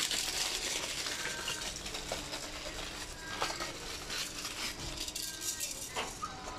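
Clear plastic bag crinkling, with light rattling clicks of a small plastic toy, as the toy is unwrapped and handled.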